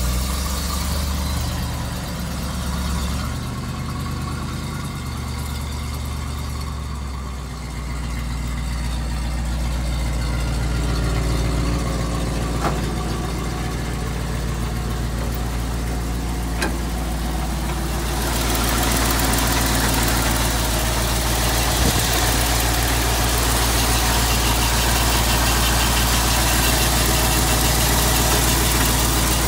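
Ford F-600 truck's 370 cubic-inch V8 with a four-barrel carburettor idling steadily. From about eighteen seconds in it grows louder and brighter, heard up close at the open engine bay.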